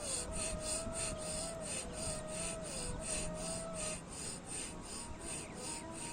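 Rapid, forced breathing through the nose in bhastrika pranayama (bellows breath): an even, rasping rush of air at about three strokes a second. Soft instrumental music plays underneath.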